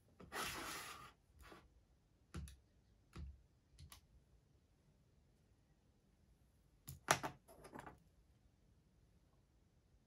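Desk items being handled: a short scrape as a scientific calculator is taken from the desk top, a few single knocks, then a quick cluster of clicks and taps about seven seconds in as things are set back down.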